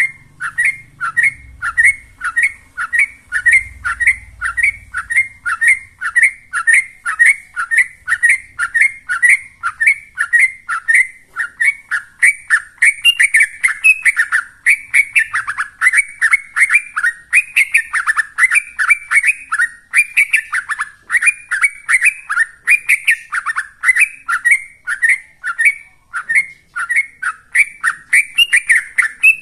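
Yellow-vented bulbul singing a rapid-fire 'ropel' song: an unbroken run of short, downward-slurred whistled notes, about two to three a second, crowding into a denser warble through the middle.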